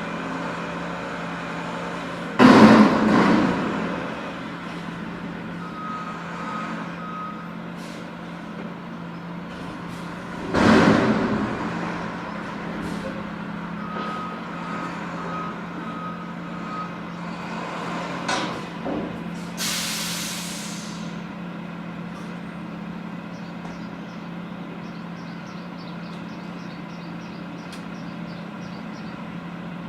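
Garbage truck's diesel engine running steadily, with two loud metallic crashes about two and a half and ten and a half seconds in. Two runs of short high beeps from a warning alarm come in between, and a sharp burst of air-brake hiss comes about twenty seconds in.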